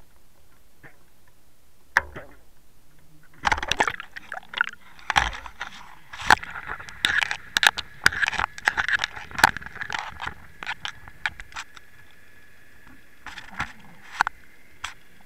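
A camera in a waterproof housing plunging into the water and sinking: a dense run of knocks, clicks and rushing, gurgling water against the housing begins about three and a half seconds in. Near the end it settles into a steady high tone with only a few knocks.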